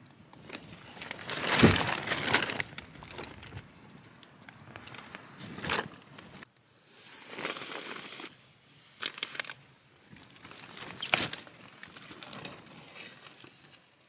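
Rustling and crinkling of tent fabric and a plastic groundsheet as camping gear is handled and set down inside a small tent, in irregular bursts with a few sharp knocks. The loudest rustle comes about two seconds in.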